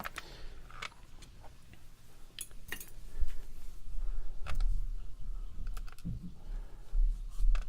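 Light, irregular clicks and taps of small lock parts and tools being handled on a work surface while a disassembled pin tumbler lock's pins are sorted.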